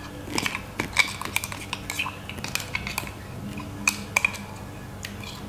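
Spoon scraping ginger, garlic and green chilli paste out of a mixer jar into a glass bowl: a string of sharp clinks and taps, loudest about a second in and again near four seconds in.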